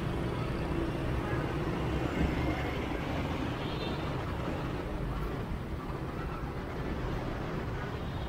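Steady low rumble of a motorbike's engine and road noise mixed with surrounding street traffic, heard from a motorbike as it rides.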